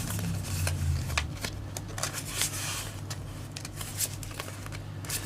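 Yu-Gi-Oh trading cards being handled and shuffled: a run of quick flicks and slides of card against card. A low hum runs under the first second.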